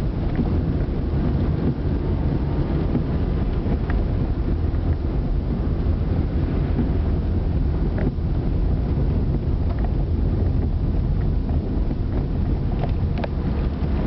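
Steady low rumble of a car's engine and tyres on a wet road, heard from inside the cabin while driving, with a few faint ticks.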